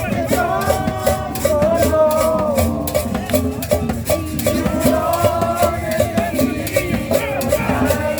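Latin tropical dance music with a steady shaker rhythm under a wavering melody line.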